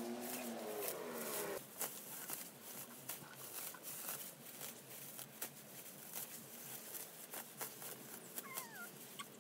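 Dry dead plant stalks and grass crackling and rustling as they are pulled by hand from a flower bed, in many irregular sharp clicks. For the first second and a half a drawn-out, wavering cry sounds over it and then stops abruptly. There is a short falling chirp near the end.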